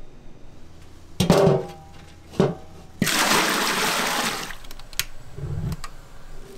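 Two metallic clanks with a brief ring, a little over a second apart. Then water gushes into a large metal stockpot of broth for about a second and a half. A short low rumble follows near the end.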